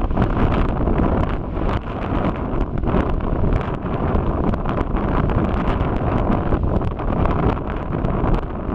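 Erta Ale's basaltic lava lake churning and spattering at its edge: a loud, steady rushing noise with many short, sharp pops and cracks throughout.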